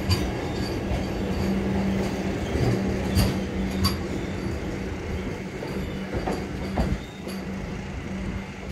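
Vande Bharat Express electric multiple unit moving slowly along the platform: a steady electrical hum over a low rolling rumble, with a few sharp clicks from the wheels and track about three to four seconds in.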